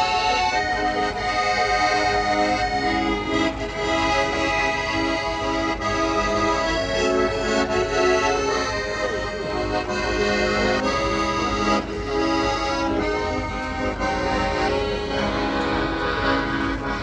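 Russian garmon (button accordion) playing a folk tune: sustained melody chords over short, rhythmically repeated bass-and-chord notes.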